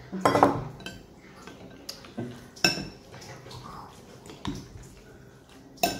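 Metal spoon and fork clinking and scraping against a bowl while noodles are mixed, in a handful of separate, irregular knocks.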